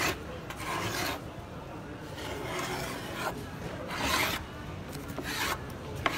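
Hand-held scrubbing tool rasping back and forth over a timber tongue-and-groove door, about one stroke a second, working off old lead paint softened by chemical stripper.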